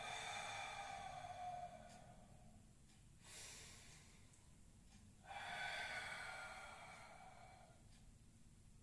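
A man breathing audibly and slowly in time with a qigong exercise: two long breaths of about two seconds each, the second about five seconds after the first, with a short faint one between.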